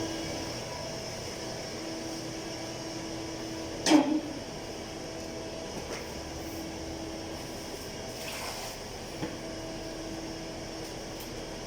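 Steady droning hum with faint tones that fade in and out, broken by one sharp knock about four seconds in and a lighter click later.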